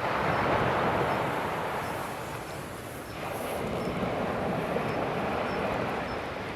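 Sea surf washing on the shore as a continuous rushing noise. It eases over the first few seconds and swells again as a fresh wave comes in about three seconds in.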